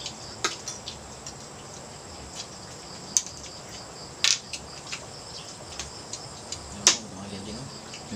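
Steady high-pitched trilling of insects, broken by four sharp clicks or knocks a second or more apart, with a faint voice near the end.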